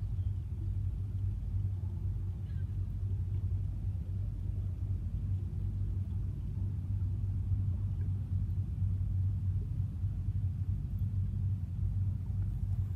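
Steady low rumble that holds unchanged throughout, with a faint short chirp about two and a half seconds in.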